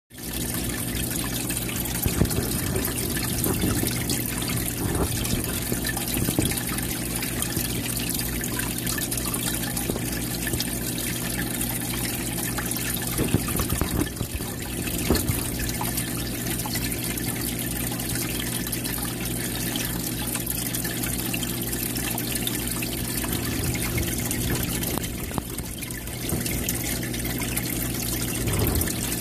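Aquarium filter water splashing and trickling into the tank surface, with a low steady hum from the pump underneath and an occasional sharper splash.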